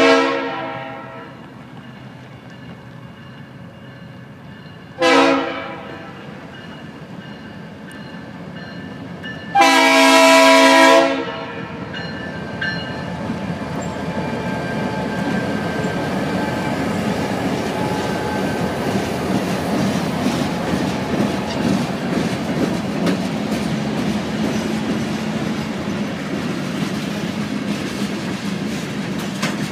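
Horn of an ex-BN EMD GP39-2 diesel locomotive sounding three blasts: a short one, another about five seconds in, and a longer one about ten seconds in. After that the locomotive's engine passes close by, followed by a string of gondola cars rolling past with wheels clacking over the rail joints.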